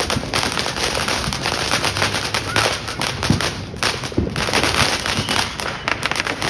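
Fireworks going off in a dense, rapid string of crackling pops, with a few louder cracks among them.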